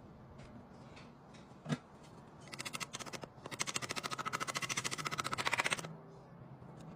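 A single metallic knock, then a wrench working a bolt, giving a fast, even run of clicks, about a dozen a second, for roughly three seconds, getting louder toward the end.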